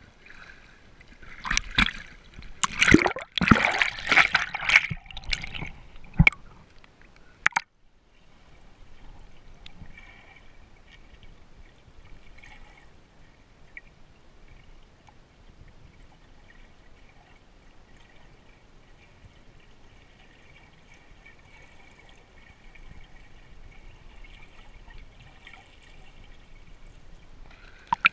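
Cold fissure water splashing and sloshing close to the microphone at the surface for about seven seconds. Then a sudden drop to a faint, muffled steady sound as the microphone goes underwater. Splashing starts again at the very end.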